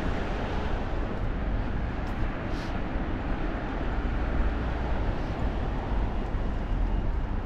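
Steady town-street ambience of road traffic noise from the road alongside the pavement, with no distinct events.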